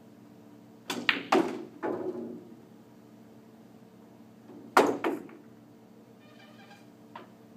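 A pool shot: the cue tip strikes the cue ball about a second in, followed at once by sharp clacks of pool balls hitting each other and a short rattle of balls rolling and knocking. Another pair of sharp ball clacks comes near the middle.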